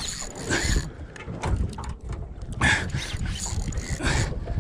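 Water slapping against the hull of a small aluminium boat in irregular surges, with wind rumbling on the microphone.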